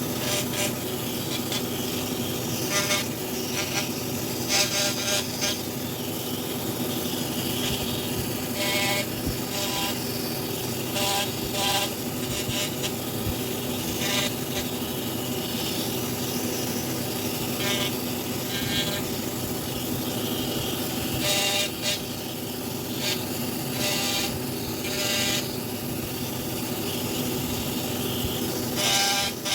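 Power carving tool's motor running steadily, with short louder bursts every few seconds as it bites into the wood.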